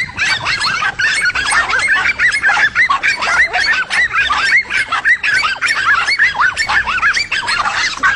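Several dogs barking and yelping at once in a fast, unbroken stream of overlapping high barks, baying at a cornered lizard.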